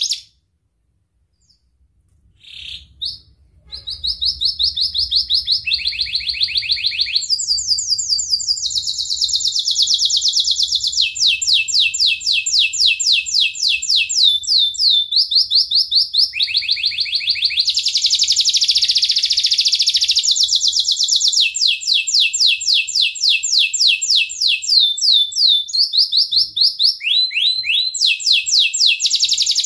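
Domestic canary singing a long, unbroken song of rapid high trills, each a fast run of repeated notes lasting a second or two before switching to a new phrase, with a buzzier stretch near the middle. The song starts after a couple of seconds of quiet and a few short chirps.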